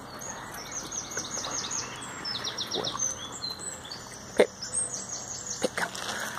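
A small songbird singing: quick runs of repeated high, downward-sliding notes, several to a second. A few sharp clicks break in, the loudest about two-thirds of the way through.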